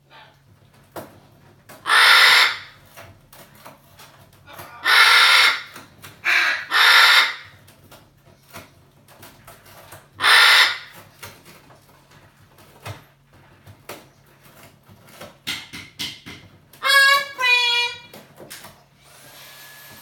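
Amazon parrot screaming for ice cream: four loud, harsh screams of about half a second each in the first half, then shorter calls near the end with a clear pitch that rises and falls.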